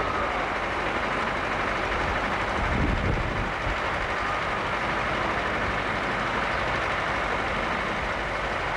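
US military vehicles, an M1 Abrams tank among them, moving along the street: a steady noise of engines and running gear, with a brief low surge about three seconds in.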